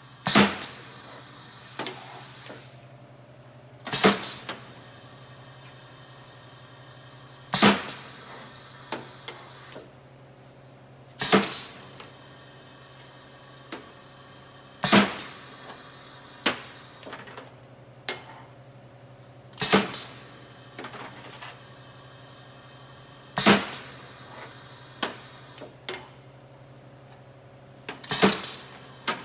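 Pneumatic tabletop piston filler cycling steadily, eight fill strokes about every four seconds. Each stroke is a sharp clack of the air cylinder and valve followed by about a second of hiss, with smaller clicks and knocks between as bottles are swapped under the nozzle. A steady low hum runs underneath.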